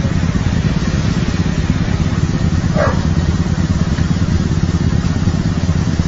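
Motorcycle engine idling steadily close by, a low rumble with quick even pulsing. A short high-pitched sound cuts in briefly about halfway through.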